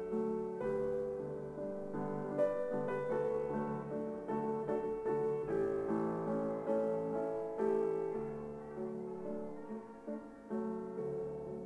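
Piano music, notes and chords played at an unhurried pace.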